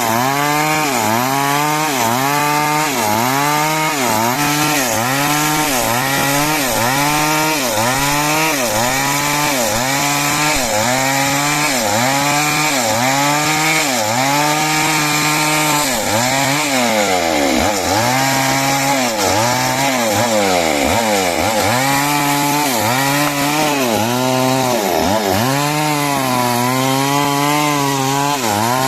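Two-stroke chainsaw cutting timber into 6 cm square rafters. The engine pitch dips under load and picks up again about once a second, sags lower and less evenly around the middle, and runs steadier near the end.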